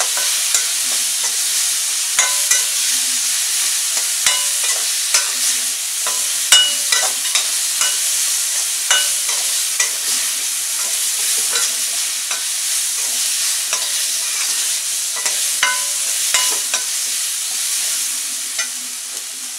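Onions, capsicum and green chillies sizzling as they are stir-fried in a kadai, with frequent clicks and scrapes of a perforated spatula against the pan. The sizzling eases off near the end.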